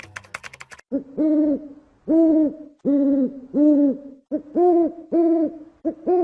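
An owl hooting: a series of short hoots, often in pairs, each rising and falling slightly in pitch. They start about a second in, after a few quick clicks.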